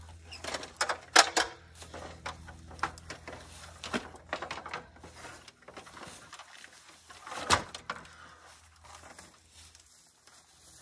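Irregular knocks and clacks from a man working at a tree jack's top bracket on a stepladder and climbing down it, the loudest knocks about a second in and about seven and a half seconds in, over a low hum that fades out about halfway through.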